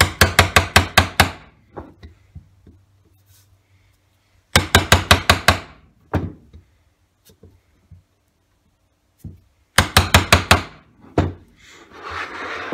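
Hammer striking a wood chisel held upright on a traced outline, driving its flat edge into the board to make the cuts that wood is later dug out from. Three quick runs of about seven taps each, about six taps a second, a few seconds apart.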